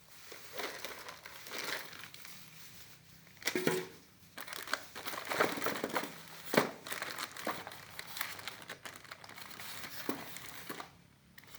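Plastic packaging crinkling and rustling in irregular bursts as the contents of a toy drone box are handled and unwrapped, with a few sharp clicks, the loudest about six and a half seconds in.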